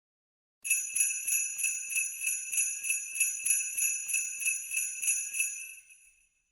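Sleigh bells shaken in a steady rhythm, about three jingles a second. They start about half a second in and fade out near the end.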